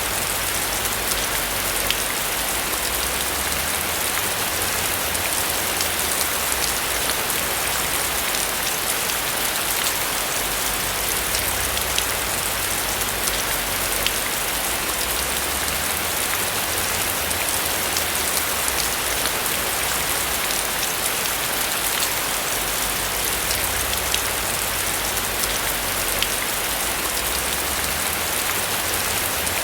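Steady rain falling on a roof, an even hiss with many small drop ticks and a low rumble underneath.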